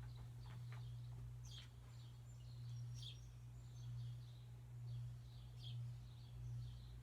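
Vintage NuTone Hacienda 52-inch ceiling fan motor running with a steady low hum that swells and fades about once a second. Birds chirp faintly now and then.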